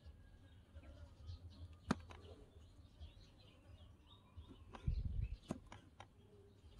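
A small knife slicing a peeled clove on a miniature wooden board: a sharp tap about two seconds in, then a cluster of taps and a dull knock near the five-second mark as the blade meets the wood. Faint bird chirps run underneath.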